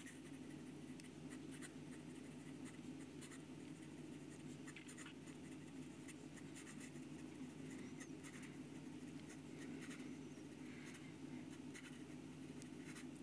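Fountain pen with a mini Fude nib scratching faintly across notebook paper in quick cursive strokes, a nib with quite a bit of feedback, over a steady low hum.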